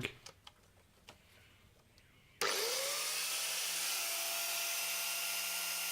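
Electric power tool motor switched on about two and a half seconds in, its whine rising briefly as it spins up, then running at a steady pitch.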